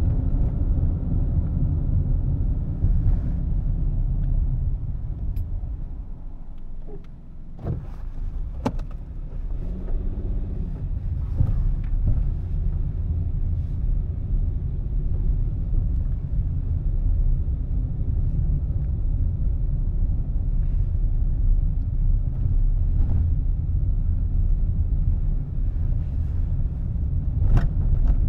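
Steady low rumble of a car driving on a paved road: engine and tyre noise. It dips in loudness about six seconds in, and the engine note rises briefly soon after. A few sharp clicks come around eight seconds in and again near the end.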